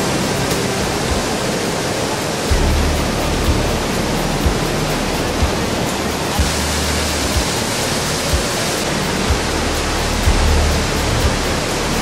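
Waterfall noise from the Rhine Falls, a dense steady rush of falling white water. Background music with a low beat about once a second comes in a few seconds in.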